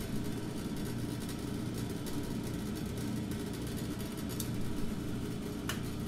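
Baldor bench buffer motor running steadily at 1800 RPM, spinning a cardboard silicon-carbide sharpening wheel, with a steady hum.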